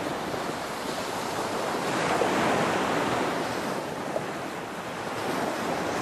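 Rushing water ambience, swelling and easing every few seconds like surf, laid under the outro card.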